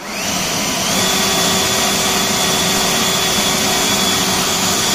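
Master Force 80V brushless cordless leaf blower spinning up and then running at full speed: a loud, steady rush of air with a high motor whine that rises briefly at the start and then holds.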